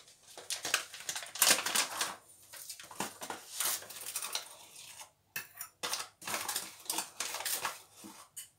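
Metal tablespoon scooping milk powder out of a plastic packet: a run of short, irregular clicks and scrapes with the packet crinkling.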